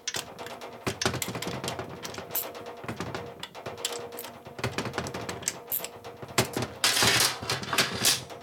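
Irregular light metallic clicks and ticks as a Harley knucklehead's crankshaft is turned by hand with a T-handle socket wrench, checking the cam gear train for drag. A louder clatter about seven seconds in.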